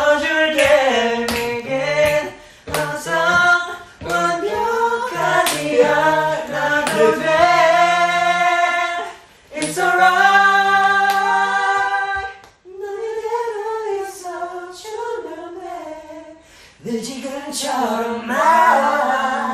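Young men singing a cappella, unaccompanied voices with long held notes. A short break comes about twelve seconds in, then quieter singing that grows louder again near the end.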